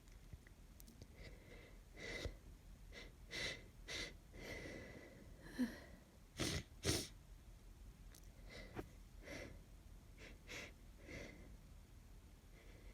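A woman with a head cold sniffling and drawing breath, then sneezing twice in quick succession about six and a half seconds in, followed by more sniffs and breaths.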